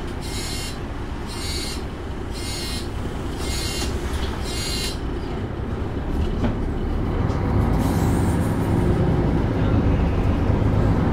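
Interior noise of a Mercedes-Benz Citaro articulated city bus: five short high-pitched beeps, about one a second, sound over the running engine, then the engine grows louder from about halfway through as the bus gathers speed.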